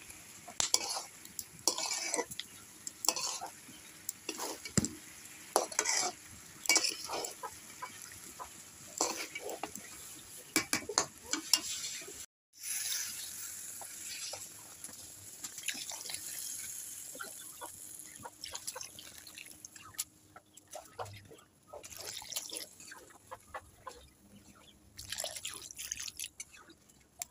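Metal spatula stirring and scraping a frying fish-head and lentil mixture in a metal pan, with repeated scrapes and knocks against the pan and a light sizzle. About halfway through, water is poured in with a hiss, and the curry then bubbles, with occasional clicks of the spatula.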